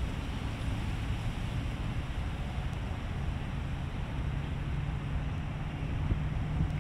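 Wind buffeting an outdoor microphone, a steady low rumble, with a faint low hum joining about halfway through.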